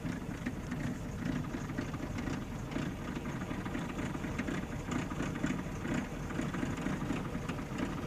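An engine running steadily: a low, even rumble with a faint crackle over it.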